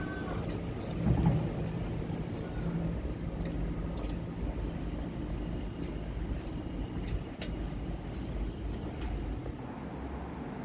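City street ambience: the steady low rumble of road traffic on a busy avenue, with a vehicle engine humming in the first few seconds and a brief swell in loudness about a second in.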